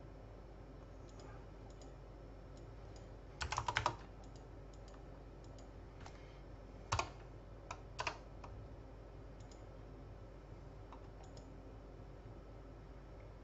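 Computer keyboard keys tapped: a quick run of about five keystrokes a little over three seconds in, then a few single key presses or clicks around the middle, over a faint steady hum.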